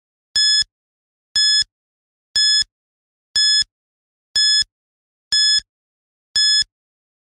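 Quiz countdown timer beeping once a second, seven short high-pitched beeps with silence between, counting down the seconds left to answer.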